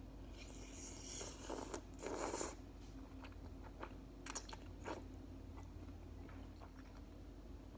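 A person slurping spicy chicken ramen noodles off a fork, with two noisy slurps in the first two and a half seconds, the second the loudest, then chewing with scattered wet mouth clicks.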